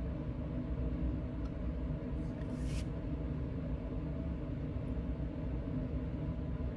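Steady low rumble and hum of a lab room's air handling, with a short soft hiss about two and a half seconds in.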